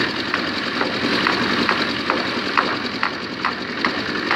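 Portable concrete mixer running with its drum turning a sand-cement mix: a steady engine drone, with a short sharp clack about twice a second.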